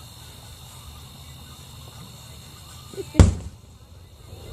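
One loud firework bang about three seconds in, over a steady chorus of crickets.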